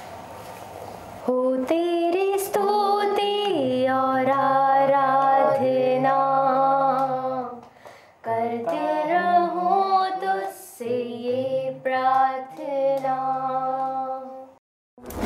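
Voices singing a Hindi worship song without instruments, in long held notes. The singing comes in two phrases with a short break about eight seconds in, and stops just before the end.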